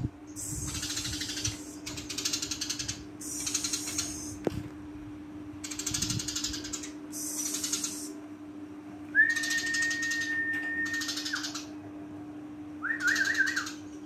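Eurasian tree sparrow chirping in repeated bursts of rapid, buzzy chatter, each about a second long. A clear whistle is held for about two seconds starting some nine seconds in, and a short wavering whistle follows near the end, over a low steady hum.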